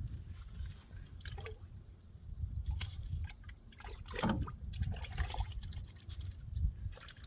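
Wet handling sounds while cleaning crappie: irregular squishes, drips and small splashes as the fish and fillets are worked by hand, over a low rumble.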